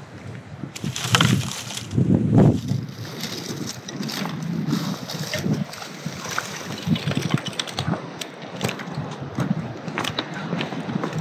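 Footsteps crunching over beach pebbles and dry reed debris, an uneven run of scrapes and clicks with the heaviest crunches about two seconds in.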